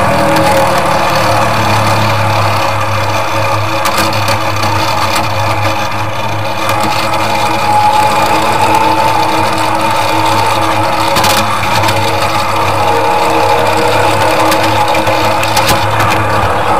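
Miniature park-railway train running along its narrow-gauge track, heard from on board: a steady mechanical running noise with a low hum and a whine, and a few sharp clicks.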